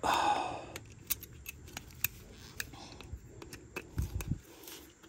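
Pliers working steel brake-pad hardware: a sharp metallic scrape at the start, then a run of small metal clicks and clinks, with a couple of low knocks about four seconds in.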